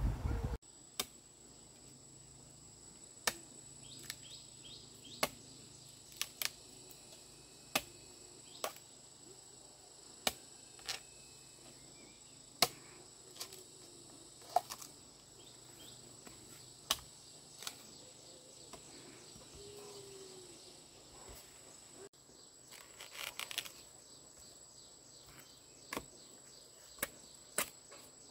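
Steady high drone of insects, broken by sharp, irregular clicks about once a second, and a short rustle near the end.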